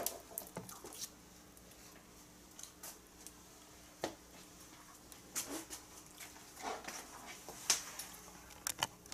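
Faint, scattered clicks, taps and short rustles of a person handling things and moving about, with a few louder ones about five and a half, seven and eight seconds in.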